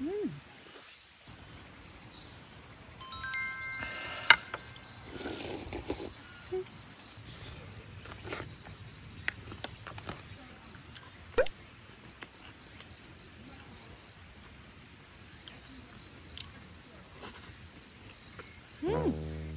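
Quiet outdoor eating sounds: light clicks of a spoon and chopsticks against the dishes and a stone pot. Insects chirp throughout in short, regular pulsed bursts. A brief chime-like musical phrase comes about three seconds in, and background music starts near the end.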